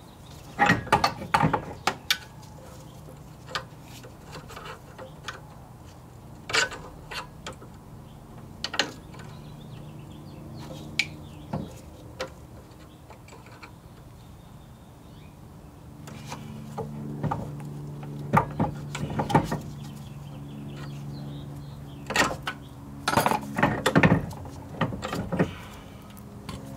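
A hammer tapping a pry bar against the rear axle hardware to work a part loose. It comes as irregular bunches of sharp metal knocks and clinks with quieter pauses between, the busiest bunches near the start and in the last third.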